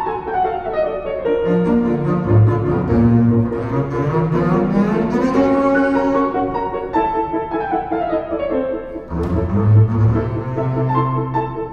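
Bowed double bass with a Steinway grand piano: the piano plays falling runs while the bass comes in with low held notes, rising in pitch, about a second and a half in and again, louder and lower, about nine seconds in.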